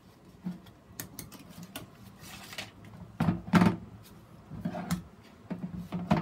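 Handling noise while tying a moss-packed plant onto a plastic grid mounting board with fishing line: scattered light clicks, a short swish, and a few louder knocks of the plastic board against the plastic box beneath, two of them close together a little past the middle and one more near the end.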